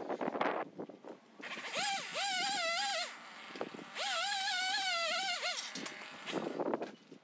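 Chainsaw run up to high revs in two bursts of about one and a half seconds, the pitch rising as each starts and dropping as it ends, with rough knocking and rustling just before and after.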